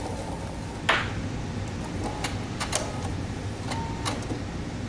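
Clicks and knocks from working at a sewing machine, the loudest about a second in and four smaller ones after, over a steady low hum.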